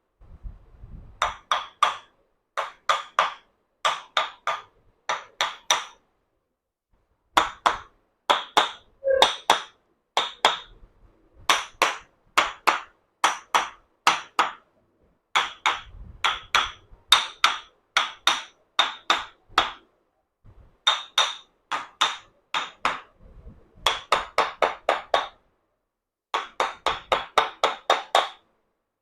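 Chiropractic hammer striking again and again in quick runs of three or four taps with short pauses, each strike ringing briefly, with a longer, faster run near the end: percussive hammer treatment of the spine.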